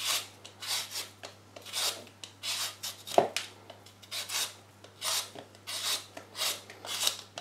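Vegetable peeler scraping the skin off a potato in short, even strokes, about two a second.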